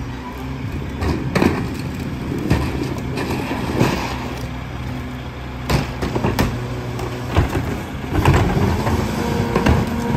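Mack MRU garbage truck's diesel engine idling steadily at the curb, with a string of sharp knocks and clatter as wheeled trash carts are tipped by hand into the rear loader's hopper, the knocks more frequent in the second half.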